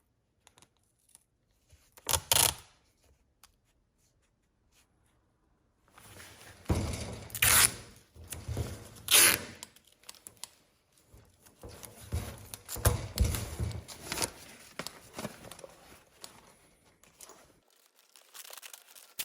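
Masking tape being pulled off the roll and torn: a short rip about two seconds in, then, after a pause, a run of rips and crinkling handling, the loudest two at about seven and a half and nine seconds.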